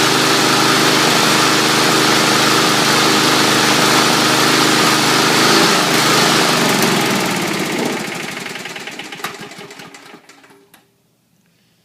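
Murray Select 22-inch push mower's small engine running steadily, then stumbling and sputtering as it loses power and dying out about three-quarters of the way through. This is the fault the owner is chasing: the mower runs for about a minute, stutters and stumbles, then won't keep running, even with a new spark plug, a new air filter and a cleaned carburetor.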